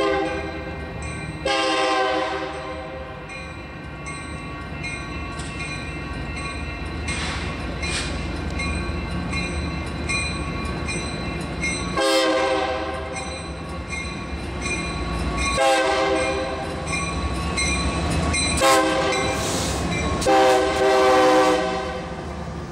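Union Pacific EMD SD70M diesel locomotive sounding its horn in a series of long and short blasts as it approaches and passes, over the rising rumble of its diesel engine. An evenly repeating strike runs underneath, the locomotive bell ringing for street running.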